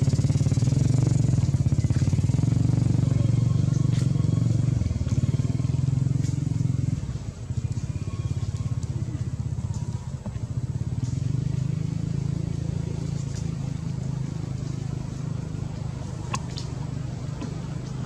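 An engine running steadily nearby, a low, fast-pulsing hum that eases off briefly about seven and ten seconds in.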